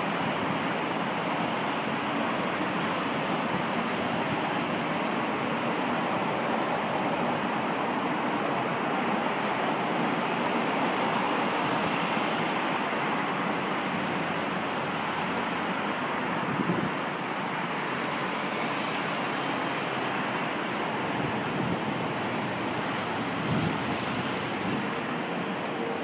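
Steady rushing noise of heavy surf whipped up by an approaching typhoon, mixed with road traffic, with no voices. Two brief low thumps, about two-thirds of the way through and near the end.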